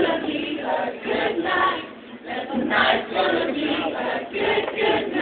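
A group of male and female voices singing together as a choir.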